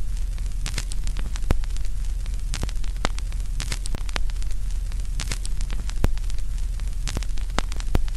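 Steady low hum and hiss with irregular sharp crackles and clicks throughout, cutting off abruptly at the end.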